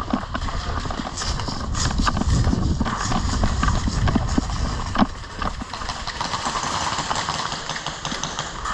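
Running footsteps in a rhythmic patter, with gear rattling, scattered sharp clicks and a low rumble.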